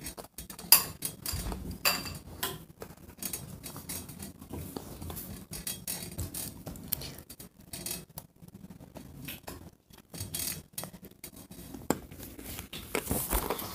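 Handling noise from a handheld phone: irregular clicks, taps and rubbing of fingers and hands on the phone and its microphone.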